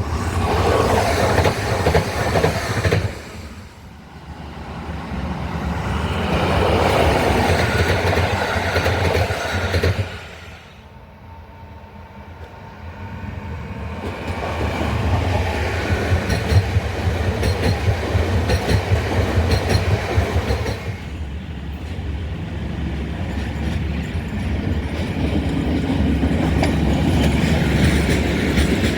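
A run of trains going past and pulling out one after another: wheels clattering over the rails, the noise swelling and dying away with each train. They include electric multiple units and an SU4210 diesel locomotive hauling a passenger train.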